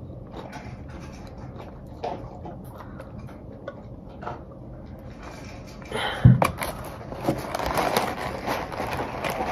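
Quiet stretch with a few small clicks, then about six seconds in a thump followed by the crackling rustle of checkered deli paper in a cardboard takeout box as food is pulled out of it.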